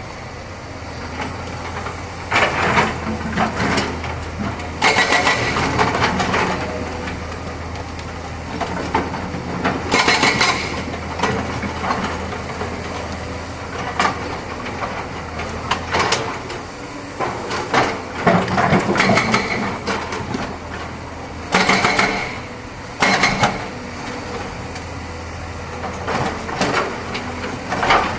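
Excavator engine running steadily, with louder noisy bursts every few seconds as the machine works.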